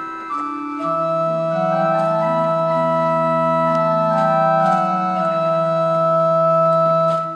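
Church pipe organ playing slow, sustained chords, with a deep bass note coming in about a second in and the chords changing every second or so.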